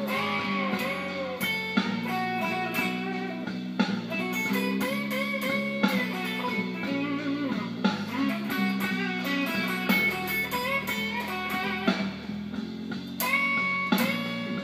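Electric blues lead guitar on a Les Paul, bending notes, played over a slow blues backing track with bass and drums.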